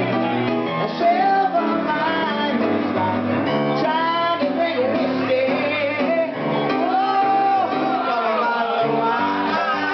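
A woman singing live into a microphone, accompanied by piano.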